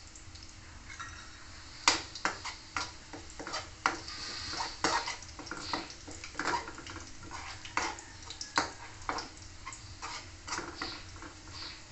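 Metal spoon clinking and scraping against a metal wok as food is stirred, in quick irregular strokes starting about two seconds in.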